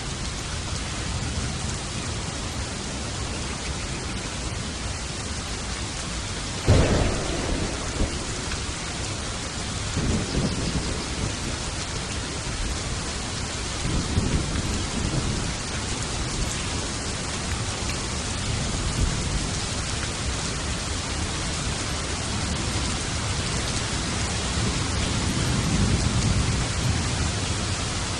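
Steady rain with thunder: a sudden sharp thunderclap about a quarter of the way in, then low rolling rumbles that swell and fade several more times.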